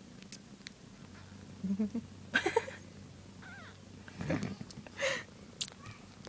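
One-day-old kittens giving several short, sudden cries and mews among brief scuffling noises as they squirm and push against each other.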